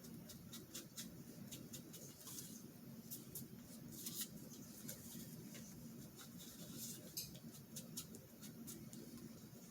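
Faint, quick high-pitched squeaks and scratches from craft work on paper at a table, many short irregular strokes, over a steady low hum.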